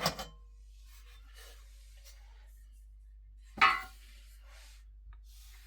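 Faint handling rustles, then a single sharp clack about three and a half seconds in as the PC case's rear hard-drive cover is moved.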